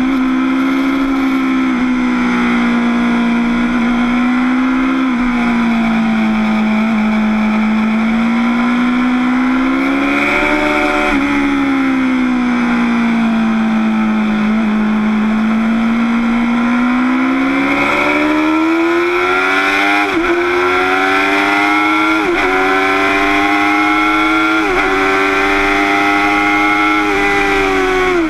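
Motorcycle engine heard from a camera on the bike, running at a fairly steady note that eases and rises gently for most of the time. From about two-thirds of the way in it pulls harder, its pitch climbing with quick short dips every couple of seconds as it shifts up through the gears, over a steady rush of wind.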